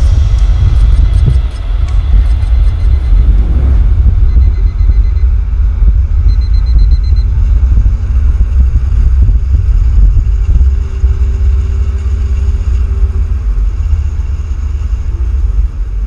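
Loud, steady low rumble of wind and road noise on a camera travelling at speed with an electric motorcycle, with a faint steady whine over it.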